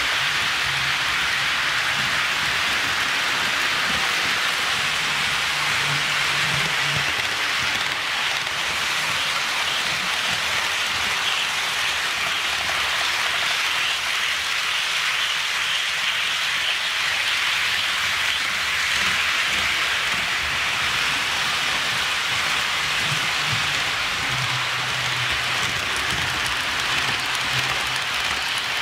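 HO scale model freight train rolling past on sectional track: a steady rushing clatter of small metal wheels on the rails, with a faint low hum coming and going a couple of times.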